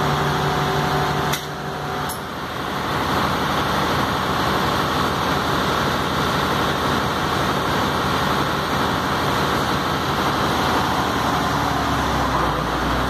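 Truck diesel engine running steadily, with two sharp clicks about one and a half and two seconds in.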